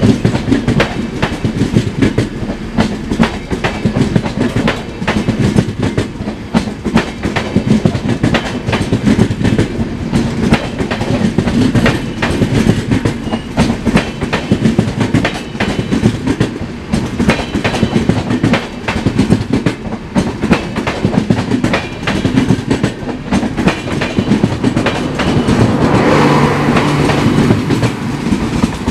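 Passenger train coaches rolling past, their wheels clicking over rail joints in a rapid, continuous clickety-clack. The sound swells a little louder near the end.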